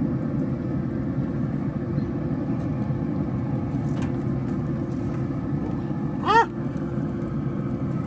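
A steady low rumble, with one short chirp about six seconds in that rises and falls in pitch.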